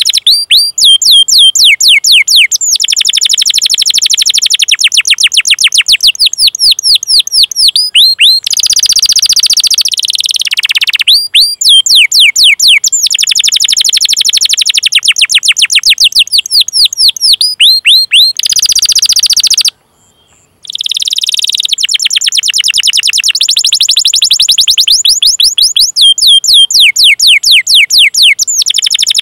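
Domestic canary singing a long run of rapid, repeated falling 'cuit cuit' chirps, broken twice by buzzy rolled trills, with a short pause about twenty seconds in. It is a canary training song (masteran) of the kind played to get other canaries to sing.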